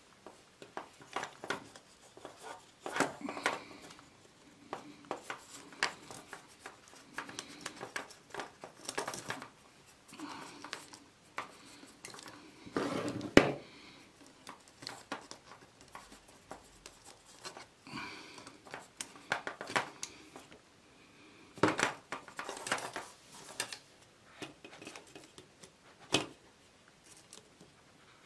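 Irregular small clicks, taps and rustles of hand work: thin wire being threaded and twisted around the fan heater's heating-element block, with pliers and cutters handled on a tabletop. One louder knock about 13 seconds in.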